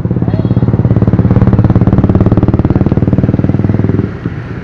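Motorbike engine running close to the microphone under throttle, a steady fast pulsing that swells, then eases off suddenly about four seconds in.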